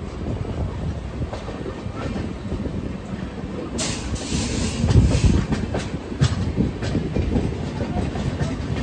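Indian express train coaches running, heard from the open doorway: a steady rumble with the wheels clicking and clattering over rail joints and points. About four seconds in there is a short burst of hiss.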